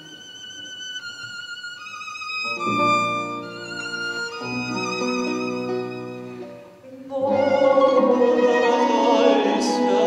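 Violin and button accordion playing an instrumental passage of a slow song. A lone melody line is joined by fuller chords about two and a half seconds in. The sound thins out briefly around seven seconds, then the ensemble comes back louder.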